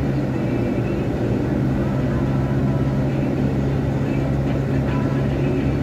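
Steady engine and road noise inside a moving car's cabin, a constant low hum while cruising.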